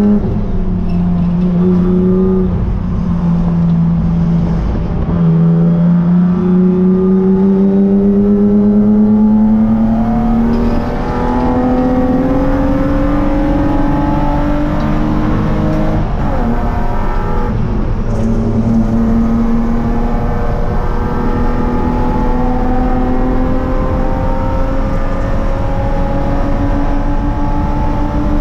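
Spec3 BMW E36 race car's inline-six engine heard from inside the cabin, running hard under load on track. Its note climbs slowly in pitch over long stretches and drops briefly a few times.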